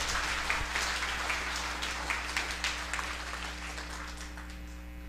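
Audience applauding, the clapping thinning and dying away near the end, with a steady electrical hum underneath.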